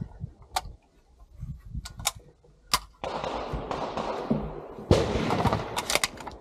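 Rustling and handling noise from a shooter getting down prone behind an AR-15-style carbine on a wooden bench. Several sharp cracks and clicks are spread through it.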